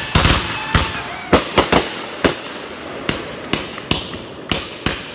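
Fireworks going off: a rapid, irregular series of sharp bangs, about a dozen in five seconds, over a steady hiss. The bangs come thickly at first and thin out toward the end.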